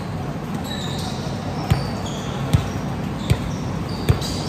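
A volleyball being struck or bounced four times at an even pace, about once every 0.8 s, with sneaker squeaks on the gym floor.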